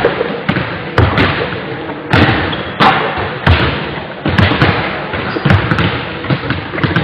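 Basketball being dribbled on a hardwood sports-hall floor: a thud about every second, each ringing on in the big hall's echo.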